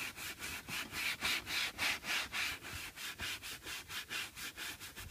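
Soft-bristled, wooden-handled ValetPRO brush scrubbing a leather car seat in quick, regular back-and-forth strokes, several a second, working leather soap into the grain to lift ingrained dirt.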